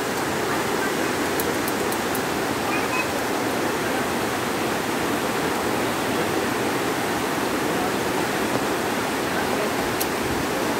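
Steady rush of a river waterfall and rapids, an even wash of water noise. A few faint metallic clicks from the zipline harness carabiners come about a second and a half in and again near the end.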